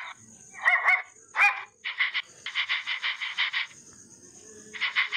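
Small dog barking: three short, high yelps in the first second and a half. These are followed by a fast, even pulsing at about ten beats a second, which stops for about a second and starts again near the end.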